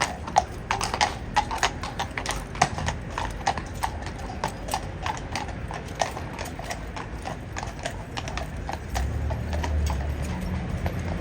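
King's Guard cavalry horses' hooves clip-clopping in a quick, uneven run of strikes, dense at first and thinning out after about seven seconds. A low rumble comes in near the end.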